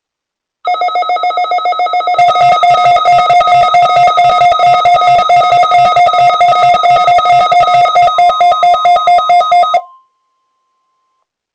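Weather alert radio's alarm going off for a NOAA Weather Radio required weekly test: loud, rapid electronic beeping at about four to five beeps a second. It grows fuller about two seconds in and cuts off suddenly near the end, leaving a faint steady alert tone for about another second.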